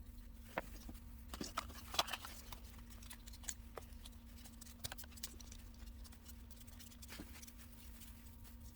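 Small fire crackling, with irregular sharp pops and snaps, a cluster of them about two seconds in, over a faint steady hum.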